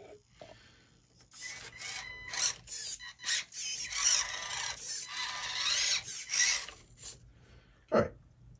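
A 1/24-scale RC micro crawler's small electric motor and gears whining in stop-and-go bursts as it climbs over rocks, its tires scraping on the stone. A single sharp knock comes near the end.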